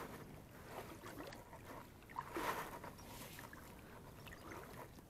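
Faint, soft water swishes and splashes around an inflatable kayak on calm water, over a low steady hiss. A couple of slightly louder swishes come about two and a half seconds in.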